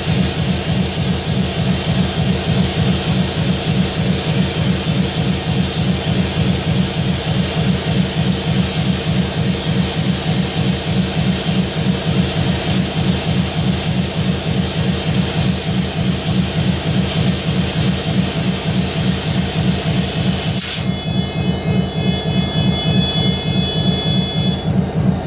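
Diesel-electric freight locomotive standing and idling close by: a steady low engine throb under a loud hiss. About 21 seconds in, the hiss drops away and thin steady high tones come in.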